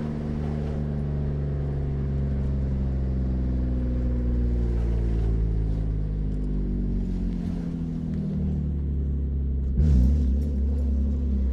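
BMW E36 engine running through a free-flowing open exhaust, holding a deep, steady low note near idle. About ten seconds in there is a brief louder, rougher burst.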